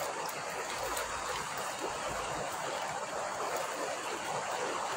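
Shallow water running steadily over a muddy bank, an even hiss with no distinct splashes.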